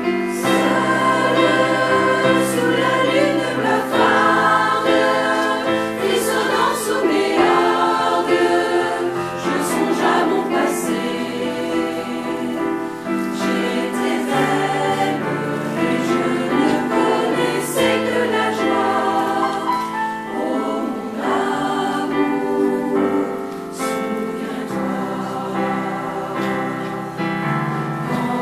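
Mixed choir singing a slow song in several parts, with piano accompaniment.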